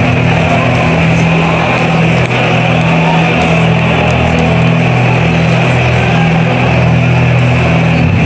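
Loud, steady arena din: crowd noise mixed with entrance music over the PA, overloaded on a phone microphone.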